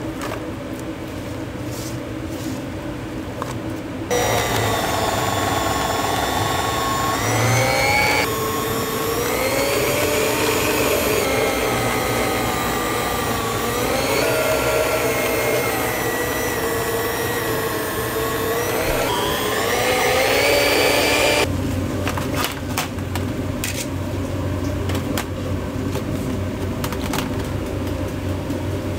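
An electric kitchen appliance's motor switches on about four seconds in and runs loudly, its pitch wandering up and down, then cuts off abruptly several seconds before the end. Quieter kitchen clatter and clicks come before and after it.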